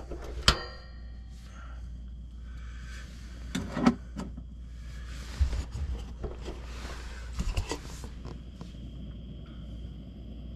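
Mr. Heater Little Buddy propane heater being lit: several sharp clicks and knocks as its control knob is pushed and turned to light the pilot, the loudest about four seconds in.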